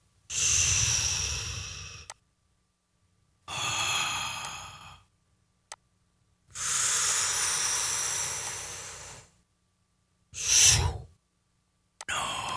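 Mouth-made whoosh sound effects played back with an equaliser and compressor applied. They are breathy rushes of air: three long ones that tail off, then a short, sharper puff about ten and a half seconds in.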